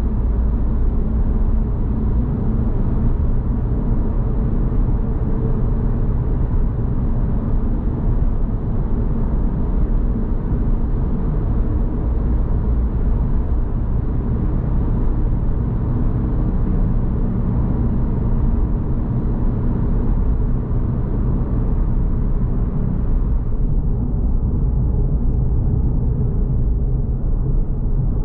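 Suzuki Swift Sport's 1.6-litre M16A four-cylinder engine and tyre noise at a steady highway cruise, a constant low rumble. About 23 seconds in, the higher hiss drops away as the car leaves the tunnel.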